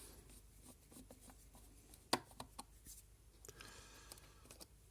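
Faint clicks and light rubbing of small plastic parts and screws being handled while a digital tyre pressure gauge is taken apart, with one sharper click about two seconds in.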